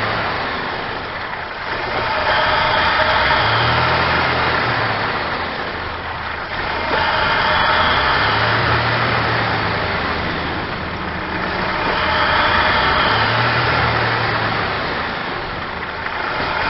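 Supercharged 3.8-litre V6 (L67 3800 Series II) of a 1999 Buick Regal GS idling roughly, its sound swelling and fading about every four to five seconds. The owner traced the rough, uneven idle to vacuum leaks from hardened lower injector O-rings and a leaking throttle body gasket.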